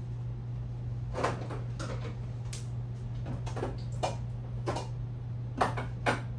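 A utensil scraping and knocking against a pan in short, uneven strokes, about one to two a second from a second in, while a gravy base of flour, oil and butter is stirred. A steady low hum runs underneath.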